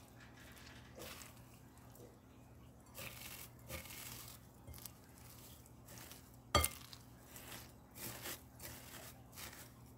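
Silicone spatula stirring moistened shredded plant-based chicken in a glass bowl: an irregular run of soft rustling, scraping strokes, with one sharp click about two-thirds of the way through.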